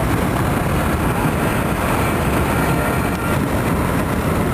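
Steady road and wind noise from a car driving at speed, a loud, even rumble with no distinct tones.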